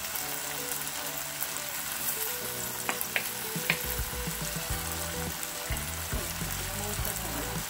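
Diced onion, bell pepper and tomato sizzling in hot olive oil in a nonstick frying pan while being stirred with a wooden spatula. A few sharp taps of the spatula against the pan come about three to four seconds in.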